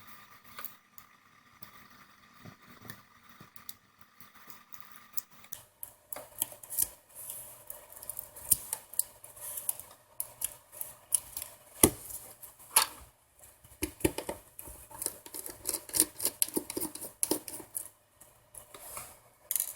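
Nearly quiet at first, then from about six seconds in a run of small sharp clicks and scrapes: hand tools working on a smartphone's screws and small metal parts during disassembly.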